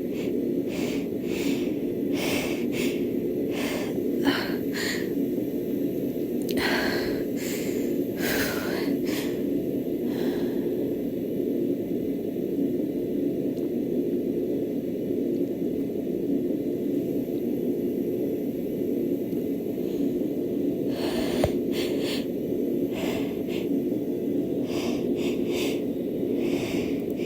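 A woman's quick, sharp hitching inhales and sniffs, in clusters with a lull in the middle, over a steady low background hum: the catching breaths of a dust-triggered sneeze building up.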